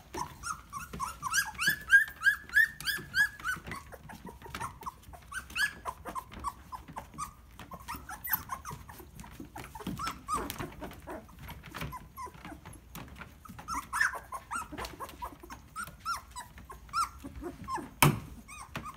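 Young standard poodle puppies yipping and whimpering in short, high-pitched calls. A quick run of yips comes about a second in, then calls are scattered and overlapping. A single sharp knock sounds near the end.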